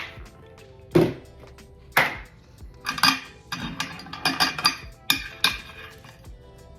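Background music under a run of sharp clinks and clatters of hard items being set down and stacked, one or two a second, busiest in the middle.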